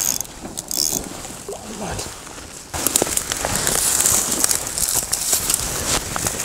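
Dry reed stalks crackling and rustling as a hand pushes down through them toward the water, much denser and louder from about three seconds in.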